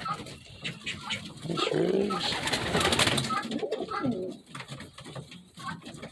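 Domestic pigeons cooing: low, rolling coos that swell about one and a half seconds in and again around four seconds. A burst of rustling comes between about two and three seconds in.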